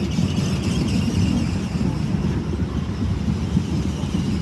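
Container freight train's flat wagons rolling past close by: a steady, loud rumble of wheels on the rails, with a fainter high hiss over it in the first second or two.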